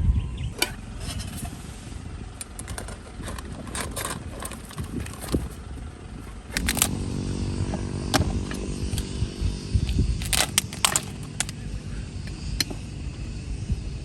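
Scattered clicks and knocks, then an engine starts running steadily about six and a half seconds in, with more clicks and knocks over it.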